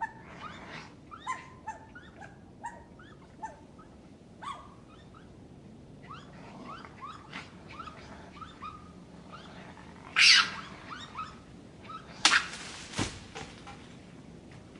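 Raccoons chirping and twittering: a quick run of short, rising squeaky calls, with two louder, harsher calls past the middle.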